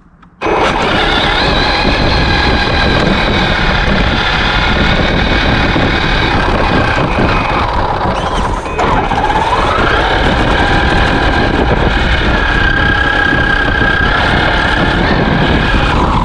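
Traxxas X-Maxx RC monster truck's electric motor and drivetrain whining, rising and falling in pitch with speed, over a steady rumble and rattle of the chassis, heard from a camera mounted on the truck. The sound cuts out for a moment at the very start, and the whine dips about halfway through, then climbs again.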